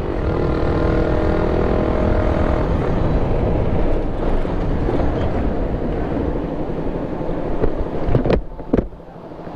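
Suzuki Raider R150 motorcycle running on the road under wind and road noise, its engine note falling slightly in the first few seconds as it eases off. Two short sharp knocks come near the end, and the sound drops as the bike slows to a stop.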